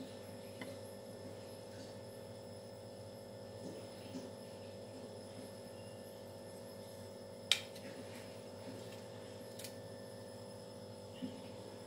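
Steady electrical hum, with one sharp metallic clink about seven and a half seconds in as a small stainless steel bowl is set down on a steel plate. A few fainter clicks follow later.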